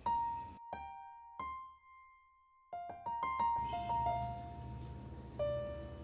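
Background piano music: a slow melody of single notes that each ring and fade, with a pause of about a second in the middle.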